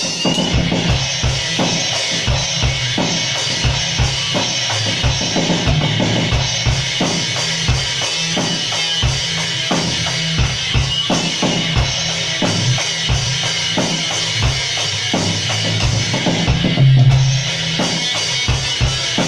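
Drum kit played hard and fast in a jam, bass drum and snare hitting densely throughout, in a rough, poor-quality recording. A louder low thump lands about 17 seconds in.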